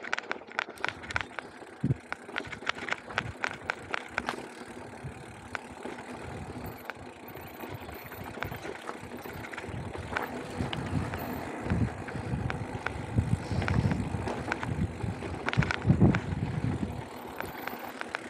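Mountain bike riding over dirt singletrack: tyres crunching on loose dirt, with many sharp clicks and rattles from the bike over bumps. From about ten seconds in, heavier low thumps and rumble take over.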